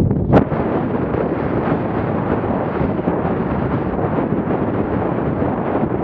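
Wind rushing over the microphone of a rider's camera at the gallop, steady and loud, with one sharp knock about half a second in.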